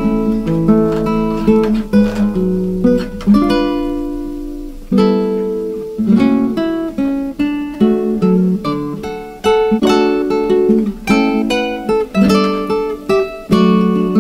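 Background instrumental music of plucked, strummed guitar notes.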